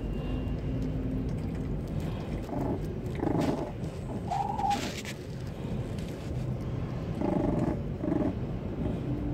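A few-weeks-old puppy giving several short, high whining calls, a cluster about three to five seconds in and more around seven to eight seconds, over a steady low rumble.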